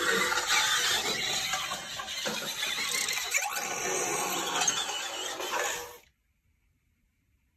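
Robosen Optimus Prime robot converting from truck to robot mode: its servo motors whirring and its plastic parts clicking, mixed with the toy's built-in transformation sound effects. The sound cuts off abruptly about six seconds in, as the conversion finishes.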